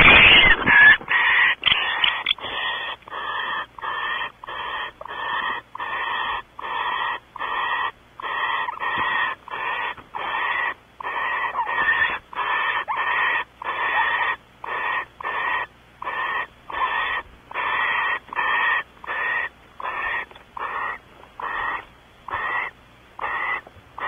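Barn owl giving a long run of short, rasping hiss calls, the species' snoring call, about one and a half a second in a steady rhythm. A louder, harsher outburst fills the first half-second.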